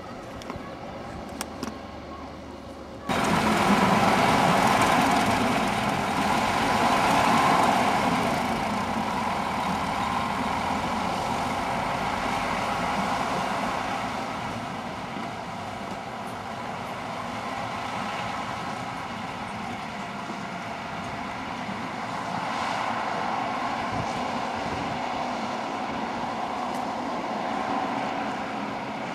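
Twin-engined Fiat Littorina railcar running under power as it approaches. The engine noise is faint at first and comes in suddenly loud about three seconds in, then stays steady and loud, strongest over the next few seconds.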